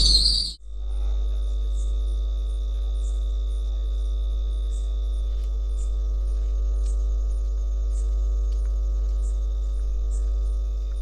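Loud crickets cut off suddenly about half a second in. After the cut comes a steady hum made of several steady tones over a low rumble, with faint high chirps about once a second.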